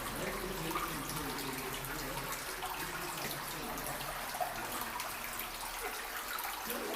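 Water trickling and dripping in a narrow rock tunnel, with a steady patter of small drips over a low running-water hiss.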